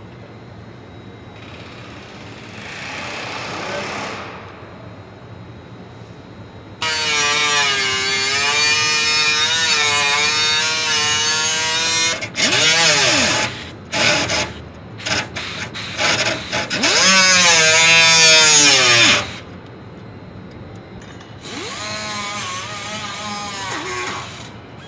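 A hand-held cut-off tool's thin abrasive disc whining at high speed, its pitch sagging and wavering as it cuts. It runs in bursts: one long run, a string of short blips, another run that ends in a falling spin-down, then a softer run near the end.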